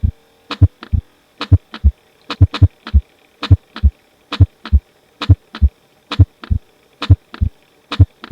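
Recorded heart sounds through a stethoscope: a steady lub-dub, one beat about every 0.9 s. On some beats the second sound (S2) splits into two close clicks, the normal physiological splitting of S2 with inspiration.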